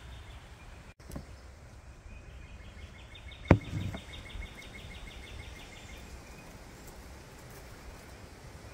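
Wooded campsite ambience: a steady low rumble under a rapid, high trill of about eight pulses a second that lasts a few seconds. About three and a half seconds in there is a single sharp knock.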